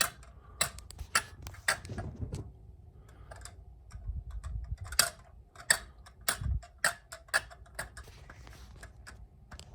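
Battery-driven kinetic motion toy running, giving off an uneven series of sharp clicks and ticks, with a few dull low thumps.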